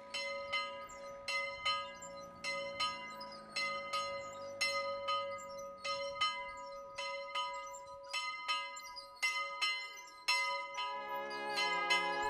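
A small chapel bell rung by its rope, struck over and over, about two strikes a second, with its ringing tone hanging on between strikes. Brass band music comes in near the end.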